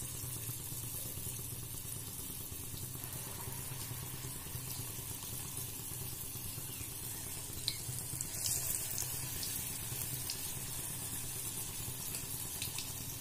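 Rice-and-lentil batter fritters (dhuska) deep-frying in hot oil in a kadhai, the oil sizzling and bubbling steadily, with a few sharper crackles around the middle. The batter has just gone in and the first side is frying.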